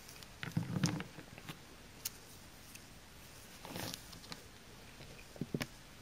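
Small plastic toy skis and ski poles being handled and taken off an action figure: a few light clicks and taps, a cluster about half a second in, one at about two seconds, a short rustle near four seconds and two more clicks near the end.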